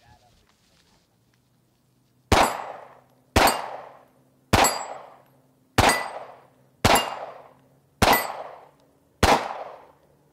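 Seven pistol shots fired at a steady pace, about one a second, each followed by a short echoing tail.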